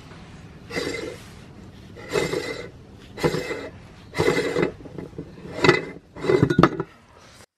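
Cast-iron hand meat grinder being taken apart: metal scraping and clinking as its ring nut is twisted on the thread and the perforated cutting plate is worked loose. About six short rasping bursts come roughly a second apart, the last ones the loudest.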